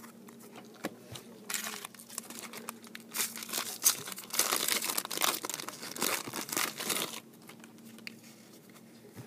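Foil wrapper of a 2013 Bowman baseball card jumbo pack being torn open and crinkled by hand. The crackling starts about a second and a half in and stops about seven seconds in.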